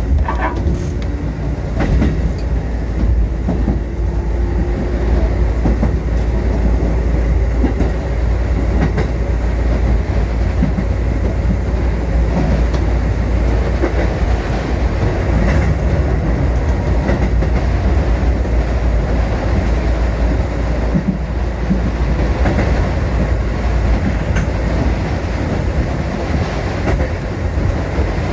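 Kotoden Kotohira Line electric train running along the track, heard from inside the front of the car: a steady rumble of wheels and running gear, with scattered clicks as the wheels pass over rail joints.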